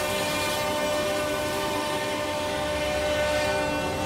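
Felder Format 4 CNC machining centre's spindle and saw running at speed, a steady whine of several held tones, as it trims the excess off a cabinet panel.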